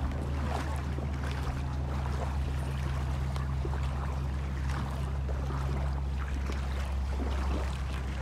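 Shallow seawater sloshing and splashing in irregular bursts as someone wades through it, over a steady low hum.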